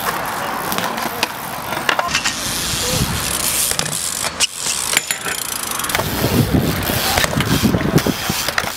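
BMX bikes riding on a concrete skatepark: tyres rolling on the concrete, with knocks and clicks from the bikes and frames.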